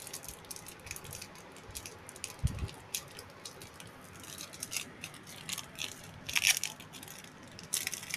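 Foil wrapper of a Pokémon trading card booster pack being torn open and crinkled as the cards are handled, giving irregular crackles that are loudest about six and a half seconds in. A dull bump comes about two and a half seconds in.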